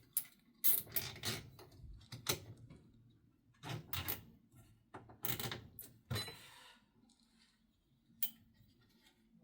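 Irregular clicks and knocks of hands working a manual wheelchair tire and rim, with plastic zip ties being ratcheted tight to hold the tire in place. Some clicks come singly, others in short clusters, with a longer pause near the end.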